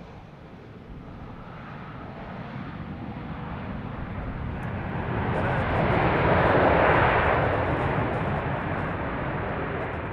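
Business jet's turbofan engines on the runway: a steady jet noise that builds to its loudest about two thirds of the way through, then fades.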